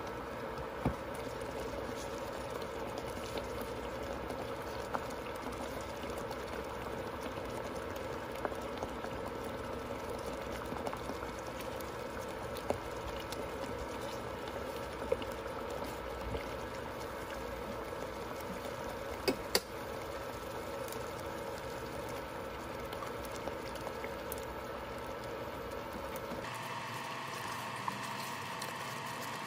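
Liquid boiling steadily, with a few small clicks; the background sound changes abruptly near the end.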